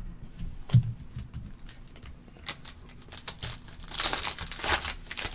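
Trading-card pack wrapper crinkling and tearing open, with scattered small clicks of cards being handled; the rustling is loudest for about a second near the end.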